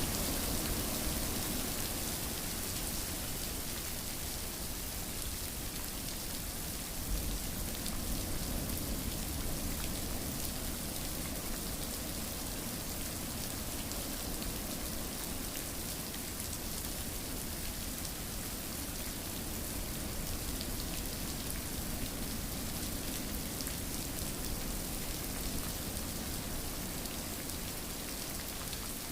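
Steady rain falling on a surface, an even, continuous hiss of many drops.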